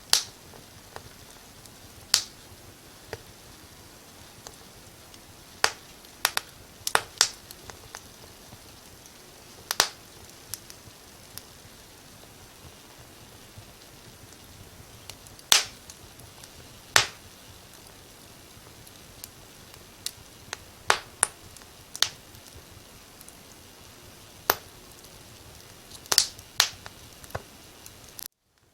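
Wood fire crackling: sharp, irregular pops, a few seconds apart and sometimes in quick pairs, over a faint steady hiss. The sound drops out completely for a moment near the end.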